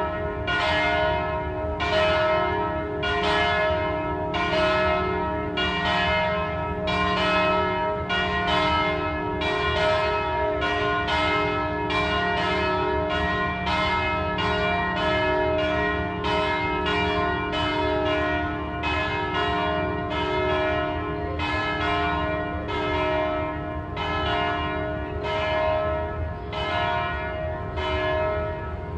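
Church bells ringing steadily, a strike about every three-quarters of a second, the tones of overlapping bells lingering between strikes.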